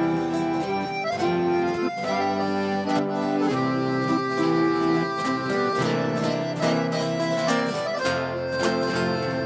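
Instrumental break in a sertanejo song, with held melody notes over a steady strummed rhythm and no singing.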